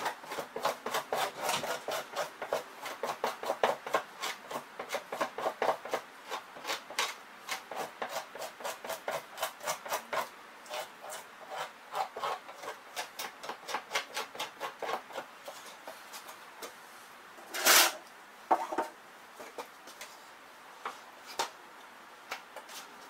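Two-handled fleshing knife scraped down a beaver pelt on a fleshing board with the back of the blade, in quick repeated strokes that strip flesh and fat from the hide. The strokes thin out about 16 seconds in, and one louder thump comes near the end.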